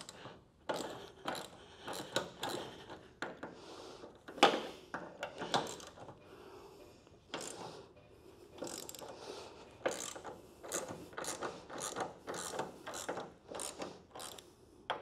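Hand socket ratchet clicking in repeated short strokes, loosening the bolts of a car door's top hinge, with a brief pause about six seconds in.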